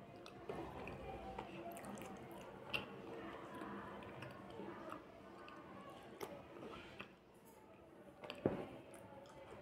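Close-up chewing of slate pencil chips in the mouth: scattered small crunches and clicks. A single sharp knock near the end.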